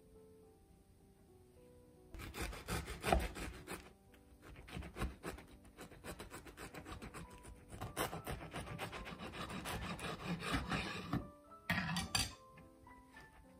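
A knife sawing back and forth through a toasted-bread sandwich on a wooden cutting board: a crisp, rapid rasping of the crust. It starts about two seconds in, pauses briefly near four seconds, runs on to about eleven seconds, and ends with one short burst. Soft piano music plays underneath.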